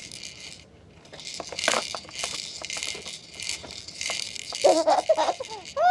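Baby bouncer rattling in repeated short bursts as the baby bounces in it. A brief baby vocalisation comes near the end.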